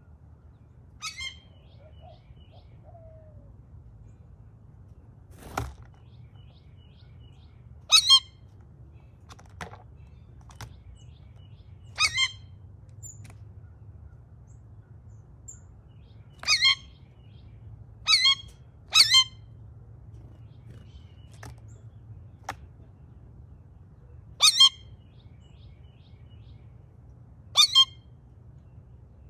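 Blue jay giving short, harsh calls, mostly in quick pairs, every few seconds. There is a single sharp knock about five and a half seconds in, and a faint low hum underneath.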